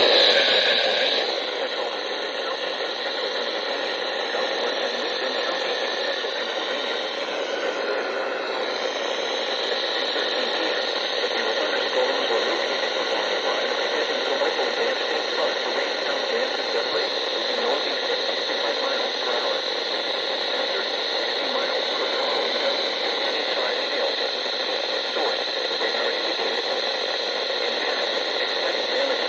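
Steady hiss of radio static from a receiver carrying no program audio, a little louder for a moment in the first second.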